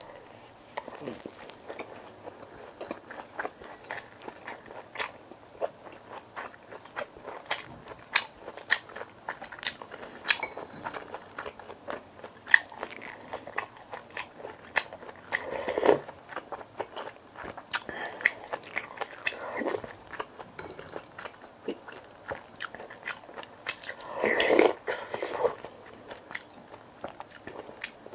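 Close-miked chewing and biting of food, with many sharp, crisp clicks and crunches from the mouth. There are two louder, longer bursts, one about halfway through and one near the end.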